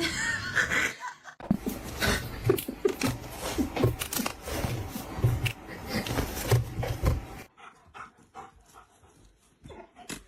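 A dog panting and whimpering, the sound changing abruptly twice as one short clip cuts to the next.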